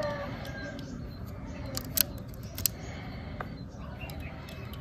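Two sharp clicks, about two seconds in and again half a second later, with a few fainter ticks, over a low steady background rumble. A rooster's crow trails off at the very start.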